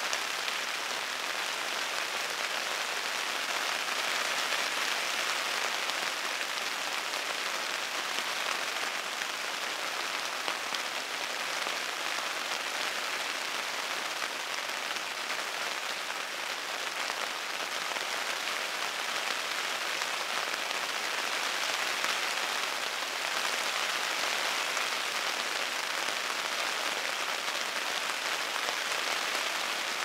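Steady rain falling on a tent's fabric, an even, dense hiss of drops that holds the same level throughout.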